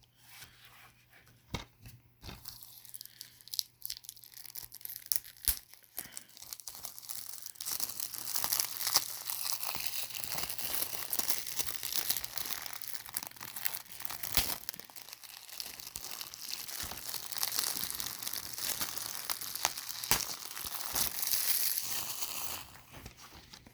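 Plastic shrink-wrap being torn and peeled off a DVD case, with scattered clicks and snaps at first, then about fifteen seconds of continuous crinkling as the wrap is pulled away and crumpled.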